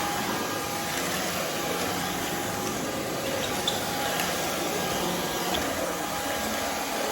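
Joyami cordless wet-dry floor vacuum running steadily while wet-cleaning a hardwood floor: an even motor whir with a faint steady whine.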